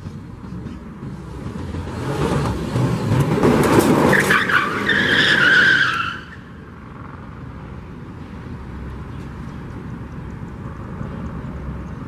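A car speeding past on a gravel lot, its engine noise building to a peak with a tire squeal about four to six seconds in. The sound drops off abruptly at about six seconds, leaving a lower steady rumble.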